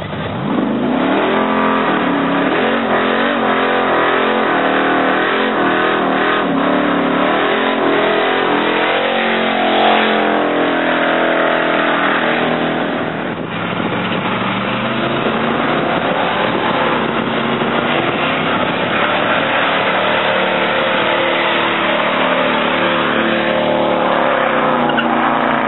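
Car doing a burnout: the engine revs hard and holds high revs while the rear tires spin and squeal on the pavement. The pitch rises and falls as the throttle is worked, with a short dip in level about halfway through.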